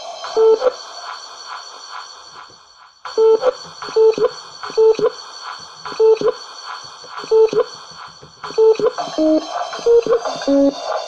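Kawai MS710 personal keyboard sounding short, beep-like electronic notes with clicky percussion in a regular beat. The notes stop for a moment and start again about three seconds in, and near the end they move between several pitches as keys are played. A faint steady high whine runs underneath.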